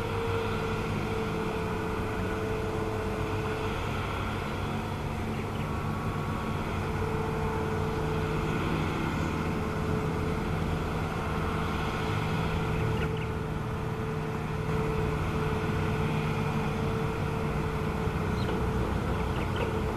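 Hitachi crawler excavator's diesel engine running steadily as the boom and bucket work, with a higher whine that fades in and out every few seconds.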